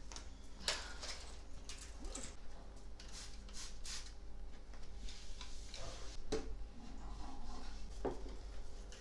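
A trigger spray bottle spritzing in several short hisses, with light clicks and a couple of knocks as a small chair is lifted and set down onto a table.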